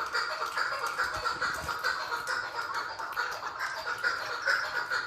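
Female chukar partridge calling: a rapid, unbroken run of short clucking notes.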